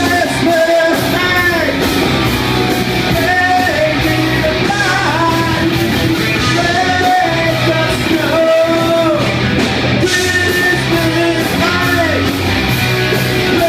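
Live rock band playing loudly, with guitars, bass and drums and a melody line carried over the top.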